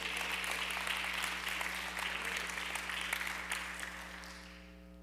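Church congregation applauding in response to the preacher's call, the clapping fading out over the last second or so.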